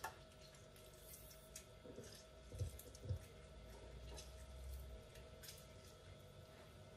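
Faint wet squishing and light drips of lemon wedges being squeezed by hand over a pot of chopped salad vegetables, with two soft low knocks about two and a half to three seconds in, over a faint steady hum.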